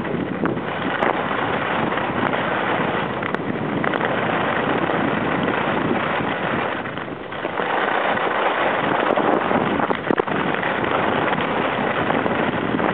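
Steady rushing noise of a downhill ski run: wind buffeting the microphone and skis sliding on the snow, easing briefly about seven seconds in.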